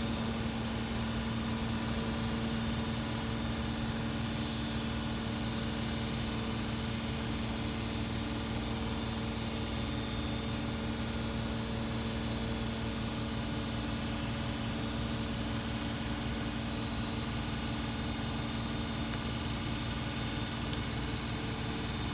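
Steady machine hum with an unchanging low tone and its overtones, running without a break.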